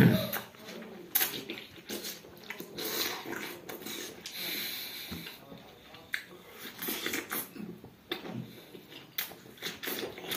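Close-up wet mouth sounds of eating juicy watermelon: biting, chewing, slurping and lip smacking in an irregular run of clicks and moist spurts, loudest at the very start.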